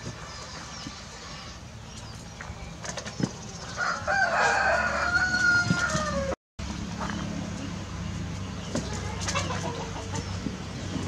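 A rooster crowing once, about four seconds in: a long call of about two seconds that holds steady and then drops in pitch at the end. A steady low hum runs underneath.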